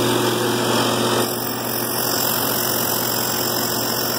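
Truck-mounted dry bulk blower, driven off the transmission PTO, turning at about 1,800 rpm with the truck engine held at 1,000 rpm: a steady machine hum with hiss, a little quieter from about a second in.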